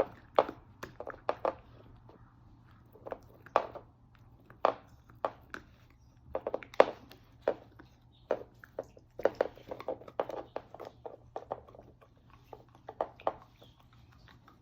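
Cardigan Welsh corgi puppy gnawing and mouthing a chew bone: irregular sharp clicks and knocks, some in quick clusters, as teeth and bone strike.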